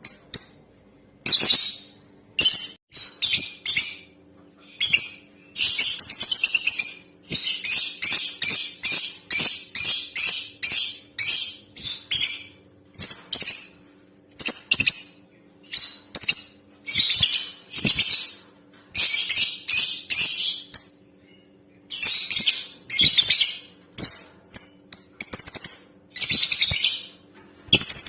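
Female lovebird chattering: shrill, rapid chirps in short bursts that run together into long unbroken chatter strings in the middle and again near the end. It is a lure call of the kind used to set male lovebirds singing.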